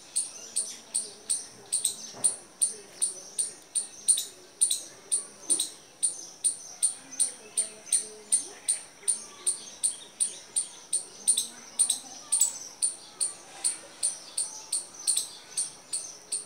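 High-pitched animal chirps repeated steadily, about three a second.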